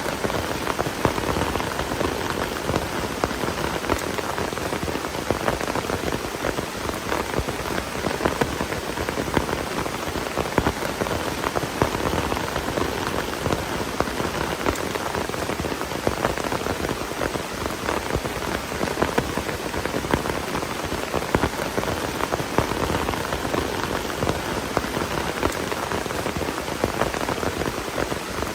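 Heavy rain falling steadily in a dense patter of drops.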